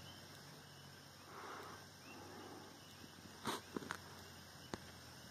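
Quiet outdoor background with a faint, even hiss, broken by a few short soft clicks about three and a half seconds in and once more near the end.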